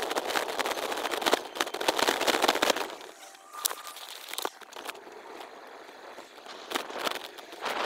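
Bicycle ride noise played six times faster: the rattles, bumps and wind squeeze into a dense crackling clatter for about three seconds, then drop to a quieter hiss with scattered clicks.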